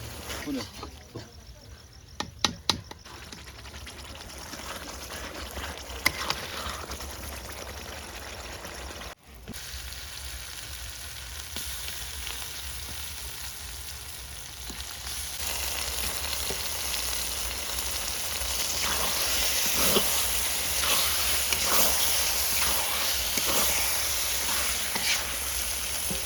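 Food sizzling as it fries in hot oil in a pan, with scattered sharp clicks of a spoon stirring. The sizzle gets louder a little past halfway through.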